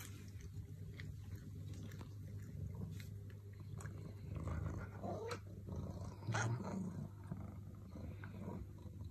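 A black cat licking and nibbling at its paw with small wet clicks, then making low growling sounds about four to seven seconds in.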